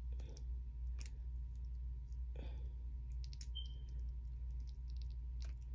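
Scattered soft clicks and smacks of eating with the fingers while tearing baked chicken apart, over a steady low hum.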